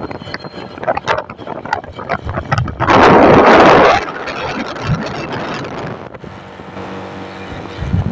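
Road and wind noise from a moving vehicle, with a loud rushing surge lasting about a second, about three seconds in. A low steady engine hum comes through near the end.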